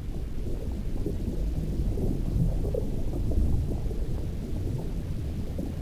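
Low, steady underwater rumble with no higher sounds over it.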